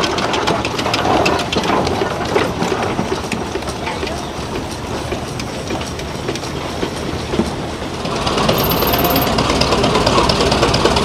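Steam traction engine running, its exhaust chuffs and working parts making a busy, uneven clatter. About eight seconds in this gives way to a steadier, slightly louder mechanical running noise.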